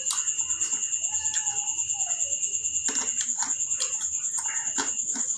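Insects chirring: a high, thin, steady trill in a fast, even pulse, with a few faint clicks.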